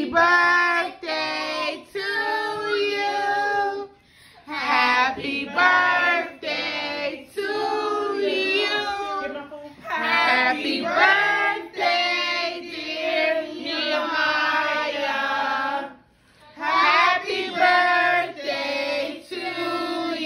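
A child's voice singing in sung phrases of a few seconds, pausing briefly about four seconds in and again near sixteen seconds in.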